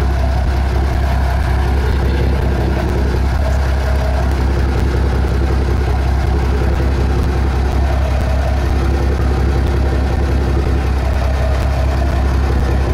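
Boat engine idling with a steady low drone.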